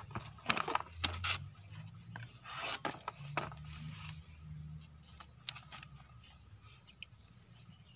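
Raffia string scraping and rubbing against a new seal and the metal part of a PC200 excavator boom cylinder as the seal is worked into its groove. It comes as rough scratchy strokes with a few sharp clicks, busiest in the first half and loudest about a second in, thinning to occasional faint ticks.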